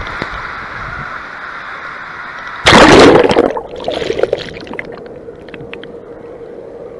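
Water rushing at the slide's exit, then a loud splash about three seconds in as the GoPro plunges into the splash pool. After it come muffled underwater gurgling, a few bubble pops and a steady low hum.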